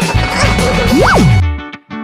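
Background music with a steady beat, with a quick whistle glide up and back down about a second in; the music stops suddenly about one and a half seconds in and a lighter tune of short plucked notes starts.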